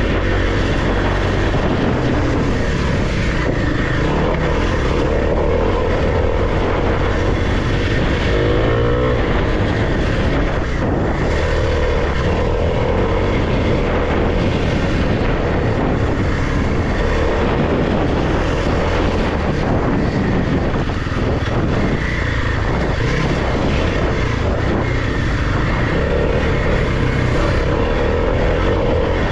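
Kawasaki KLX300's single-cylinder four-stroke engine running as the bike is ridden along dirt singletrack, revs rising and falling with the throttle, under a constant rush of noise.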